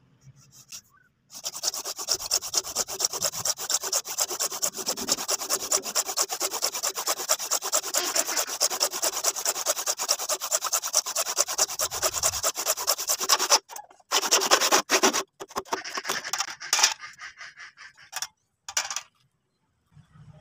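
Crosscut hand saw cutting through a plastic pipe in rapid back-and-forth strokes, starting about a second in. Near the end the sawing breaks into a few short bursts as the cut is finished, then stops.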